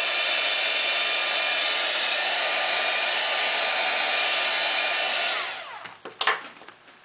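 Handheld embossing heat tool running: a steady blowing hiss with a faint fan whine. About five seconds in it is switched off and whirs down with a falling pitch, and a sharp knock follows near the end.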